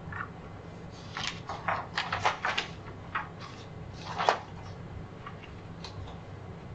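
Papers and small items being handled on a meeting table: a run of short rustles and knocks from about a second in to past the middle, the loudest near the middle, over a steady low room hum.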